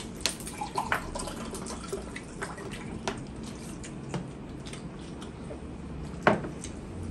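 Scattered small clicks and taps of eating and drinking by hand at steel plates and water glasses, with a sharper knock about six seconds in.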